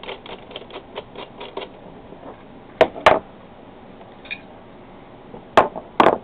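Airgun parts and tools being handled on a workbench: a run of light ticks in the first second and a half, then two sharp knocks about three seconds in and two more near the end.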